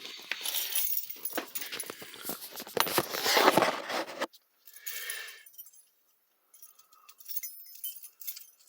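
A small wire lock and its keys being handled: about four seconds of dense metallic clicking and rattling, then a pause and a few light jingling ticks near the end.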